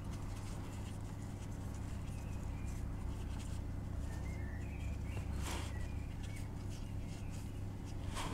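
Faint birds chirping over a steady low hum, with a brief click about five and a half seconds in and another at the end as the plastic oil filter housing is turned by hand.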